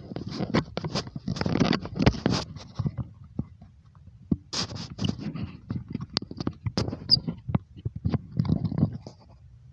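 Axial SCX10 II RC crawler climbing a boulder: its tyres scrabble and scrape on the rock, with sharp clicks and knocks coming in irregular bursts. The noise comes in two busy stretches with a short lull between.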